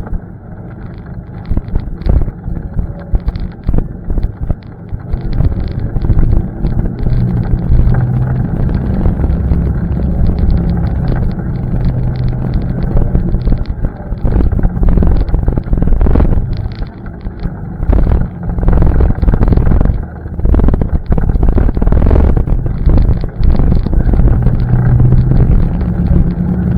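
ATV engine running under throttle over rough trail, its pitch rising and falling, with a brief easing off twice. Wind noise and jolts knock on the microphone.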